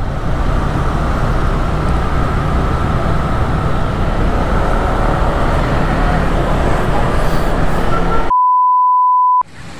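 Motorcycle riding through city traffic: engine and road noise with wind on the mounted camera's microphone. About eight seconds in it cuts off suddenly to a steady, pure beep lasting about a second.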